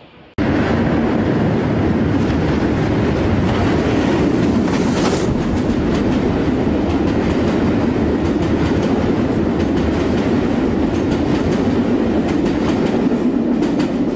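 Train running along the rails at speed: a loud, steady rumble with the clickety-clack of wheels over rail joints, starting abruptly about half a second in.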